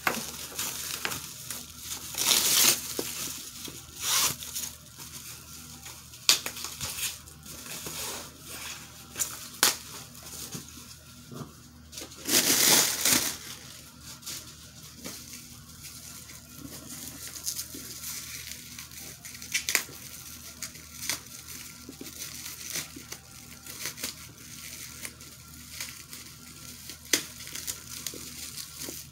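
Tissue-paper and plastic packing stuffing crinkling and rustling as it is pulled out of a leather tote bag, in a string of short crackles. The loudest bursts come about two and a half, four, and twelve to thirteen seconds in.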